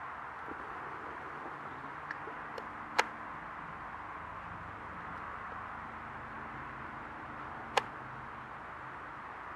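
Distant hovering police helicopter, faint as a low steady hum under a steady hiss. Two sharp clicks, about three seconds in and near the end, are the loudest sounds.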